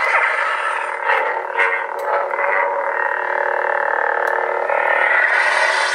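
Lightsaber soundboard hum from a Korbanth K4 hilt's built-in Nano Biscotte v4 sound board and 20mm bass speaker, a steady electric buzz with the blade lit. It swells several times in the first couple of seconds as the hilt is moved, then holds steady and cuts off suddenly at the end.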